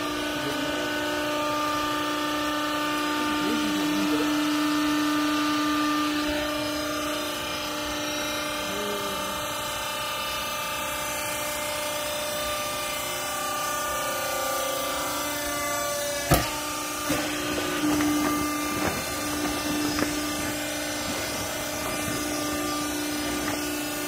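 Hydraulic power unit of a 50 kg vertical clothing baler running with a steady hum while the press ram drives down. One sharp knock about sixteen seconds in, then a few lighter knocks.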